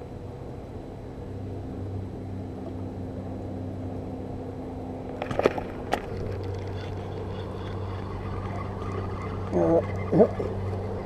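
Steady low engine drone from passing motor traffic, holding a few fixed pitches, with two sharp clicks about five and a half seconds in.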